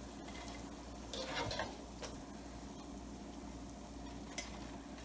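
Hot oil sizzling quietly in a wok around battered chicken pieces at the end of their second, crisping fry, as they are lifted out with a wire spider strainer. A brief scrape of the strainer comes about a second in, with light clicks later.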